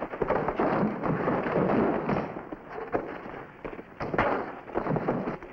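Fistfight sound: scuffling and blows landing, with a sharp hit about four seconds in.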